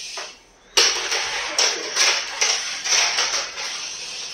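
Steel tape measure being pulled out and drawn along a wooden floor: a rattling, scraping noise in quick uneven pulls that starts suddenly about a second in.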